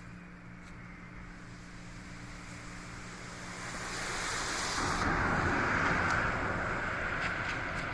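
A vehicle passes in the rain. Its noise swells to a peak about five seconds in, with a hiss of spray off the wet surface that cuts off suddenly, then slowly fades.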